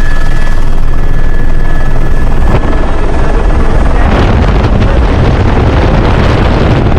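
Loud helicopter engine and rotor noise, a dense steady rumble, with a louder rushing noise building from about four seconds in.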